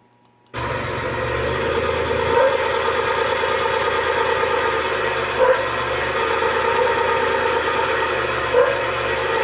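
Suzuki F6A three-cylinder engine idling steadily, cutting in about half a second in, with a brief louder swell about every three seconds.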